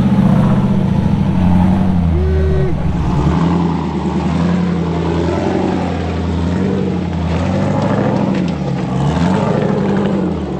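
Jeep Cherokee's engine revving up and down repeatedly under load as it crawls up a rock ledge.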